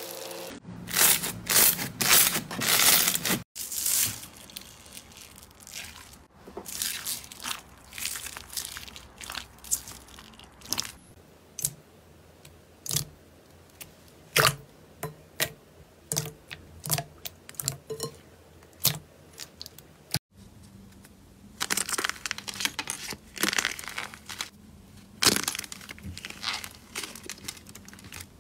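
Hand-played slime in a run of short clips. Glossy slime is pressed and squished in a bowl with scattered wet clicks and pops. Near the end, a hardened clay crust over soft slime cracks and crinkles as it is peeled and squeezed.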